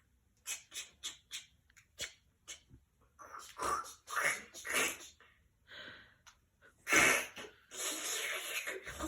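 A young child making breathy mouth sound effects: a run of short puffs and clicks, then longer breathy noises, the loudest burst about seven seconds in.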